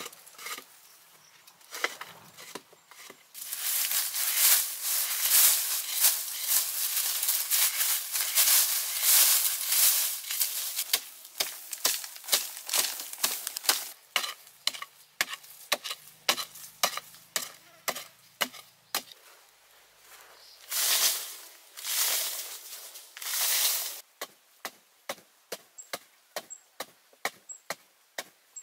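Digging by hand in dry, crumbly soil: a long stretch of scraping and scooping loose earth, then a digging pole striking the ground in repeated strokes, settling near the end into a steady beat of about one and a half strikes a second.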